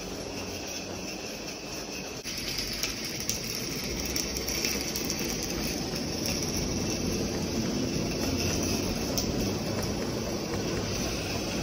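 Live-steam model Shay locomotives running with a heavy freight train: a steady hiss of steam over the rumble of wheels on the track, growing louder about two seconds in.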